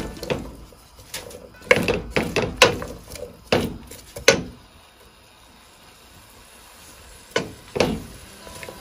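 A cooking utensil knocking against a pot: a run of sharp knocks over the first four seconds or so, a quieter stretch of about three seconds, then two more knocks near the end.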